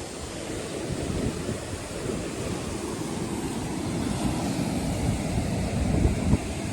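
Sea waves splashing on a coral-rock shore, with wind gusting across the microphone, the gusts strongest near the end.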